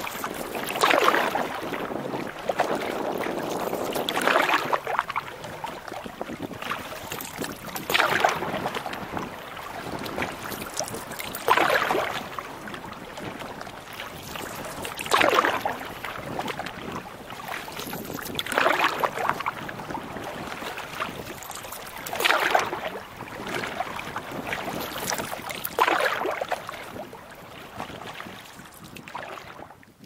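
Canoe paddle strokes in choppy water: a splash and rush of water about every three and a half seconds, eight strokes in a steady rhythm.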